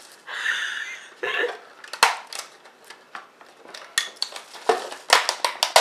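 A plastic VHS cassette and its loose magnetic tape being handled: a brief crinkling rustle at first, then a run of sharp plastic clicks and knocks, thickest near the end.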